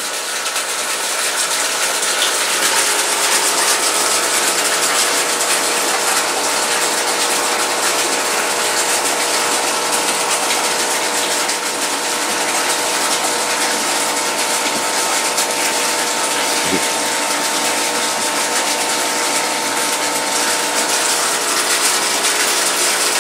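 Aquarium air pump and filter running steadily: a constant mechanical hum with a fine rattling buzz, and air bubbling up through the tank water.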